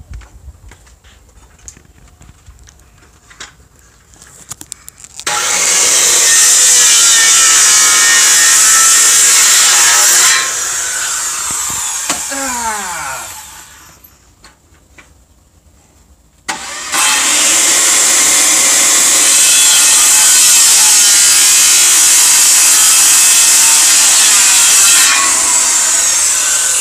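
Corded circular saw cutting through wooden pallet boards. One cut runs about five seconds, then the motor winds down with a falling whine. After a few seconds' pause, a second, longer cut runs about ten seconds.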